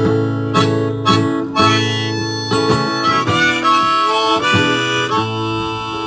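Harmonica playing sustained notes over a strummed acoustic guitar in the instrumental ending of a country song.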